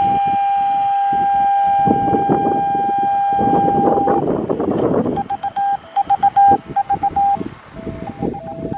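2.4 GHz amateur radio beacon received in FM on an Icom IC-905 transceiver, heard through its speaker as a single tone. The tone holds steady for about four seconds, then is keyed on and off in Morse code. Crackly noise swells under the tone in the middle.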